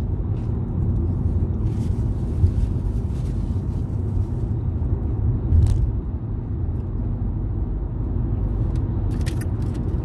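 Steady low rumble of a moving car heard from inside the cabin, with a few faint crunches as a fried chicken sandwich is bitten and chewed.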